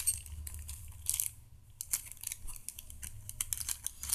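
Thin clear plastic bags crinkling and crackling in the hands as they are handled and packed away, in irregular bursts with a few light clicks.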